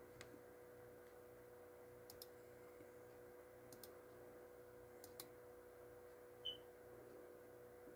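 Near silence with a faint steady hum and a few soft clicks from the laptop being operated. A short high blip about six and a half seconds in is the loudest event.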